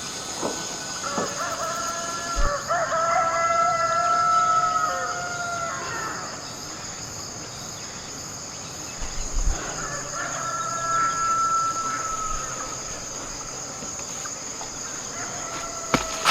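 A rooster crowing twice, a long crow about two seconds in and a shorter one about ten seconds in, over a steady high-pitched insect drone.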